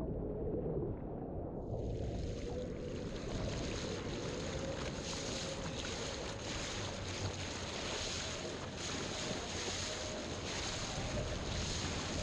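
Lift eFoil electric hydrofoil board riding over sea water, with wind buffeting the microphone and rushing water. A broad hiss swells about a second and a half in and then holds steady, with a faint whine underneath that rises slightly.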